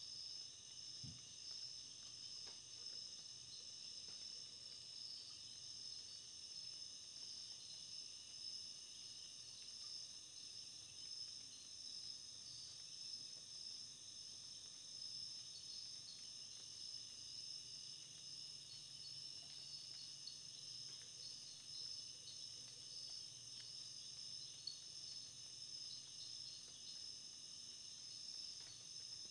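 Faint, steady, high-pitched chorus of trilling insects.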